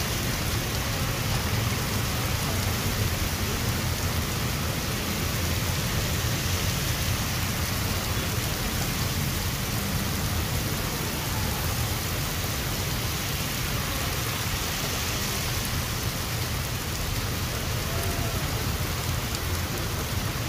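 Heavy monsoon rain pouring steadily onto a waterlogged street: a constant, even hiss with a low rumble underneath.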